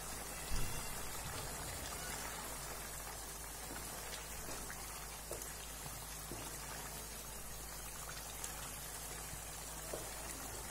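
Thick beef gravy bubbling and sizzling in a pan as it reduces and thickens, a steady low hiss. A wooden spatula knocks against the pan about half a second in and gives a few faint scrapes and taps later as the meat is stirred.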